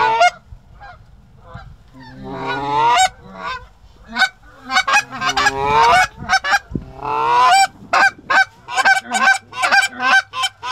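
Canada goose honking, loud: several drawn-out rising honks, then from about eight seconds in a fast run of short clucks, two or three a second.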